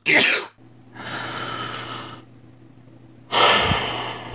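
A voiced, mouth-made comic sneeze: a sharp loud burst at the start, then a long breathy hiss, and a second loud breathy burst about three seconds in.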